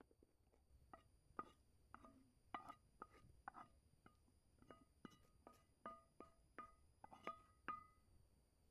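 Wooden spoon knocking and scraping against a small metal frying pan as food is tipped out into a wooden bowl: a string of faint knocks, about two a second, each making the pan ring briefly at the same few pitches.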